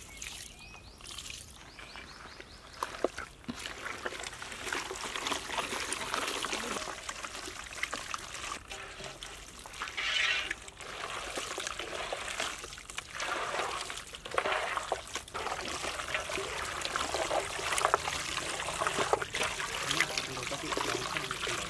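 Wet squelching and squishing of a bare hand mixing raw mutton pieces through a thick yogurt-and-spice marinade with oil in a large aluminium pot, in irregular uneven bursts.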